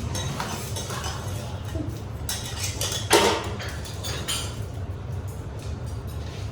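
Metal cutlery and utensils clinking against plates and the teppanyaki griddle, with one louder clank about three seconds in, over a steady low hum.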